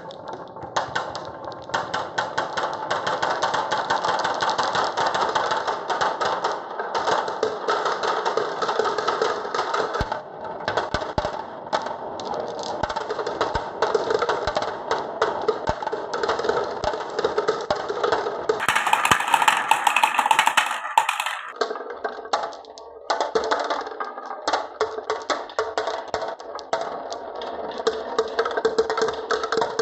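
Marbles rolling and clacking along wooden marble-run tracks and blocks: a dense, continuous wooden clatter of many small knocks. About two-thirds of the way in there is a louder, brighter burst of clatter for a couple of seconds.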